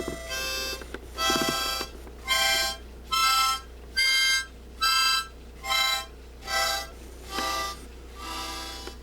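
Harmonica playing a simple tune in separate short notes, about one a second, each a blown chord with rich overtones; the last two notes are softer.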